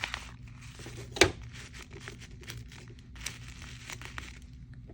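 Tape-covered paper squishy crinkling and crackling as it is handled and squeezed, with one sharper, louder crackle a little over a second in.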